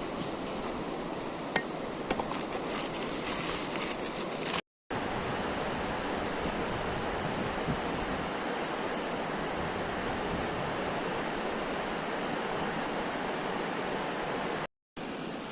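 Steady rushing of fast-flowing floodwater, with a couple of small clicks in the first few seconds. The sound drops out briefly twice.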